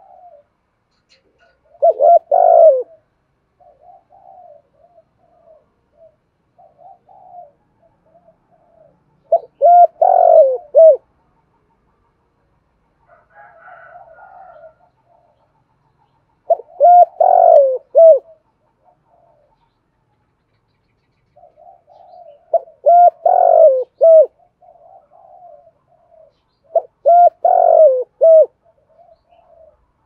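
Spotted dove cooing: five loud phrases of several low coos each, lasting about a second and coming every five to seven seconds, with softer coos in between.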